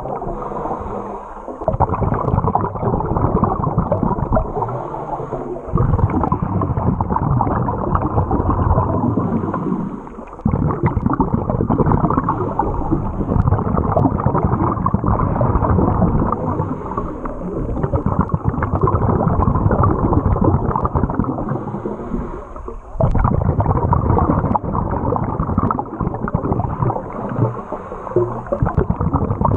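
Water noise picked up by a camera underwater: a continuous low bubbling and gurgling, with a faint hiss that comes back every few seconds.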